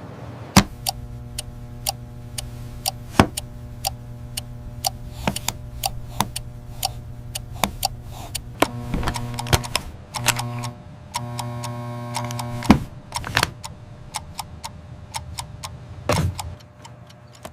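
Many sharp clicks and taps at uneven spacing over a steady low electronic hum, which cuts out briefly a few times around the middle.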